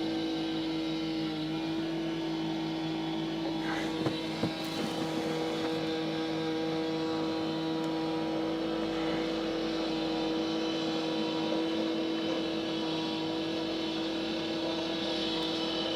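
Construction machinery engine running at a steady pitch, with two short knocks about four seconds in.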